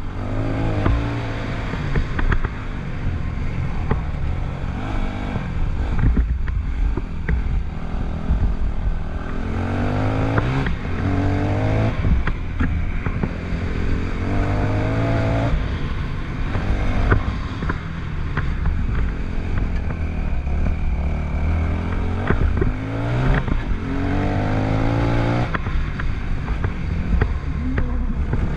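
Yamaha WR250F single-cylinder four-stroke dirt bike engine under way, its pitch rising in repeated runs of acceleration and dropping back as the throttle eases. Scattered sharp clicks and clatter are heard throughout.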